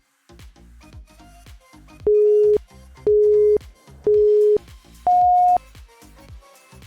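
Electronic countdown beeps from a workout interval timer: three identical short beeps a second apart, then one higher beep. This is the usual signal for the changeover between timed exercises. Upbeat background music with a steady beat plays underneath.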